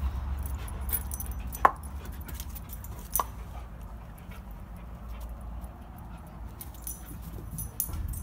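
Greyhound cross giving two short, sharp yips in play, about a second and a half apart, with light jingling clicks around them.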